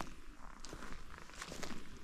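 Footsteps of a walker on a path: a few irregular steps.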